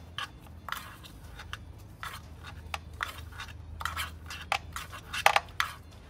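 Gloved hands working the ignition coil pack on top of a 1.4-litre turbo four-cylinder engine: a string of light clicks, taps and scrapes, loudest about five seconds in, over a low steady hum.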